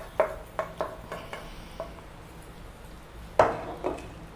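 Wooden spoon knocking against a nonstick pan while stirring a thick dal curry: a run of light knocks in the first second and a half, then a louder knock about three and a half seconds in and a smaller one just after.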